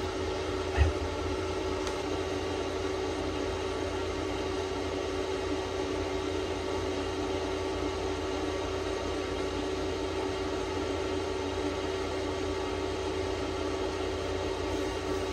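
Steady machine hum with one constant mid-pitched tone, and a single short thump about a second in.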